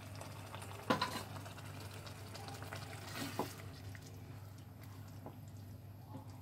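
Wooden spatula stirring watery curry gravy in a nonstick pan just after hot water has been added, the liquid sloshing softly. The spatula knocks against the pan about a second in and again near the middle, over a steady low hum.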